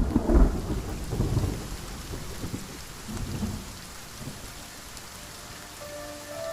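Thunder rumbling loudly for the first second or so, then dying away under steady rain. A few held music notes come in near the end.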